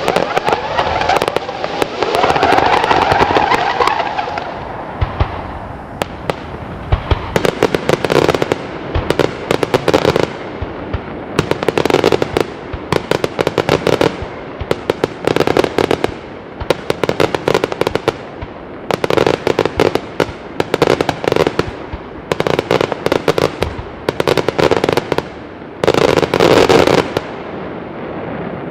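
Daytime aerial fireworks shells breaking into clusters of many small bangs, sharp reports in rapid volleys, one cluster every second or two. A denser, continuous crackle fills the first few seconds.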